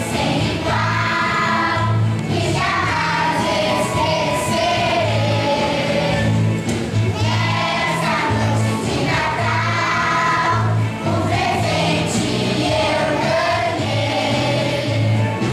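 Children's choir singing a song in unison over an accompaniment with a regular low bass pulse.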